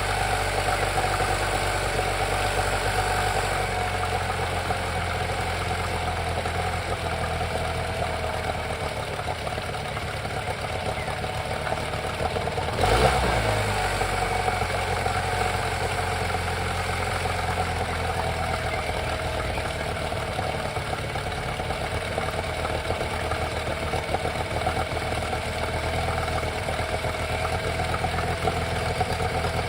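Honda 8 hp four-stroke outboard motor running at a steady idle with its carburettor freshly cleaned of sand. About thirteen seconds in, there is one brief louder blip.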